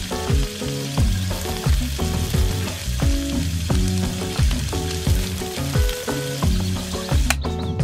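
Hissing, sizzling noise of a jet of water from a toy water pump dousing a small fire; the hiss cuts off near the end. Background music with a steady beat plays throughout.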